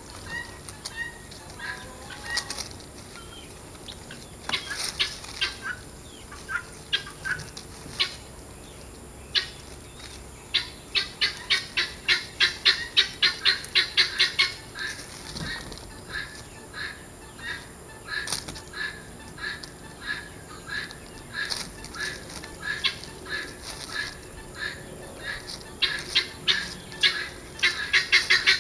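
Chickens clucking in quick, evenly spaced runs of calls, about three or four a second, with scattered single clucks between the runs.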